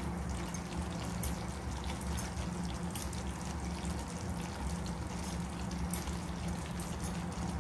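Creamy milk-based masala gravy simmering in a pan, with a steady low bubbling and faint scattered pops.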